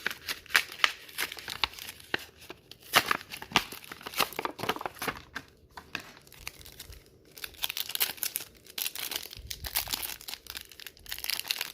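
Foil booster pack being torn open and crinkled by hand, with irregular sharp crackles and tearing rustles throughout.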